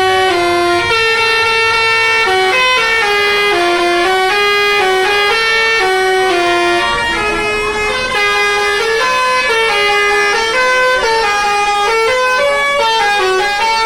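Tour bus's telolet musical air horn playing a fast, continuous tune of held notes that step up and down, two tones often sounding together.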